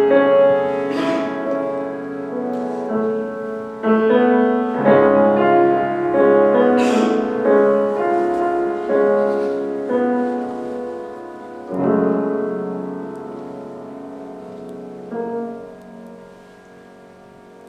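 Piano playing a slow closing passage of chords and melody notes, new chords struck every few seconds and gradually quieter, the last one fading away near the end.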